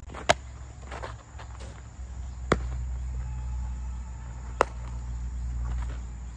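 A baseball smacking into a leather youth infield glove during a game of catch: three sharp pops about two seconds apart, over a steady low rumble.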